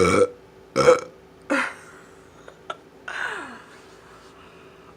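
A person burping deliberately: three short, loud burps in quick succession within the first two seconds, then a fainter sound falling in pitch about three seconds in.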